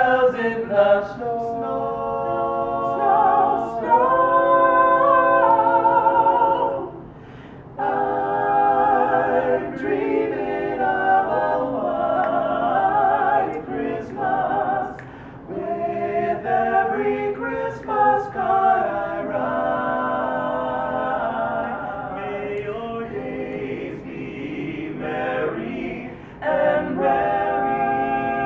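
Doo-wop vocal group singing a cappella in close harmony, several voices holding and moving through chords, with a short break about seven seconds in.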